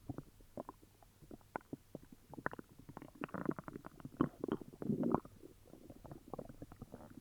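Stomach gurgling and growling from an upset stomach: a string of short pops and bubbling gurgles that thickens into a denser gurgling run in the middle.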